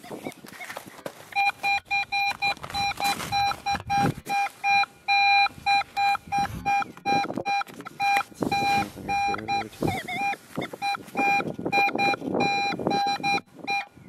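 Nokta Makro Legend metal detector beeping repeatedly in one steady mid-pitched tone, about two to three beeps a second, as its coil sweeps over an aluminium pop can: the tone it gives for an aluminium can.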